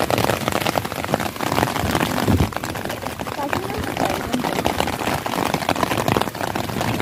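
Heavy rain falling: a dense, steady patter of drops close to the microphone.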